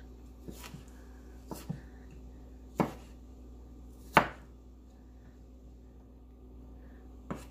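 Kitchen knife slicing strawberries on a wooden cutting board: about seven sharp knocks of the blade on the board at irregular intervals, the loudest a little over four seconds in.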